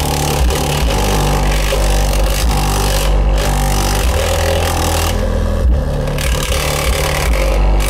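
Loud music bass pounding from a Digital Designs DD1508 8-inch car subwoofer, with deep bass notes changing in steps. The bass is loud enough to fill the recording with a harsh, rattling haze.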